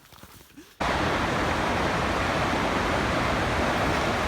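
Steady rushing roar of a waterfall, starting abruptly about a second in.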